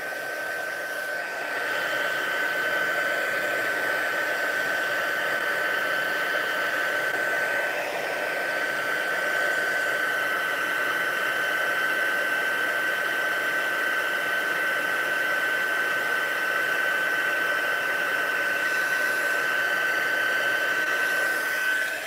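Handheld embossing heat tool blowing steadily, a fan rush with a strong steady high whine, cutting off at the end. It is melting gold embossing powder on stamped cardstock (heat embossing).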